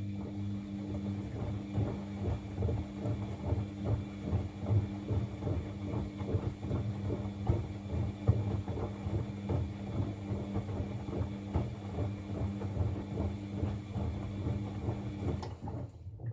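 Bosch WFCX 2460 front-loading washing machine tumbling a blanket in water. The drum motor runs with a steady hum and whine while the wet load sloshes and thuds irregularly, and the motor cuts out abruptly near the end, the pause between drum turns in the wash cycle.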